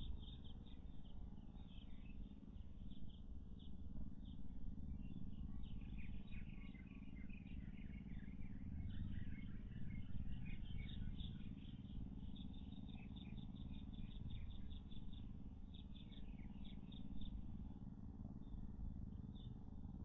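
Forest background with rapid high chirping from small birds or insects, thickest through the middle, over a steady low rumble.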